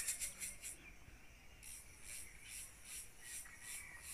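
Faint, high-pitched insect chirping: a fast rattling trill in the first second, then even chirps about three a second.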